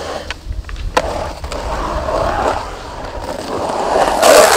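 Skateboard wheels rolling over the humps of an asphalt pump track, the rolling rush swelling and fading, with a sharp click about a second in and a louder rush near the end.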